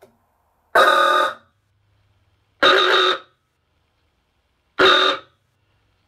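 Antique motor-driven rotary car horn (the 'ahooga' type) powered three times in short bursts, each a steady blare about half a second long with no rise in pitch. It fails to give the 'ahooga' sound, which the owner puts down to its age or to its having been meant to run on 6 V.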